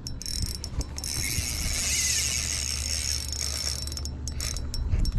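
Spinning fishing reel being cranked, a steady mechanical whirr of its gears as line is wound in on a hooked channel catfish, with a few sharp clicks near the start and end.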